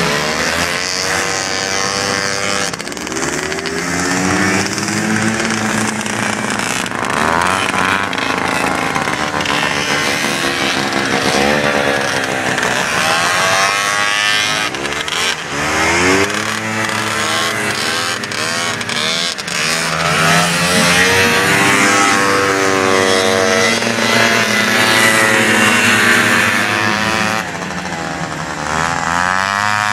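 Several vintage two-stroke snowmobile engines running at once, revving up and down as the sleds accelerate and slow, their rising and falling pitches overlapping.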